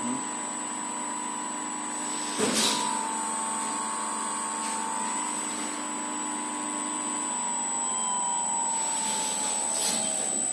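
Electric motor driven by a repaired variable frequency drive, whistling with a steady high-pitched tone over a lower hum. The middle tone glides downward near the end, and there is a brief knock about two and a half seconds in. The whistle comes from the motor itself, and the owners tie it to the drive's replacement board, since the original board ran it almost silently.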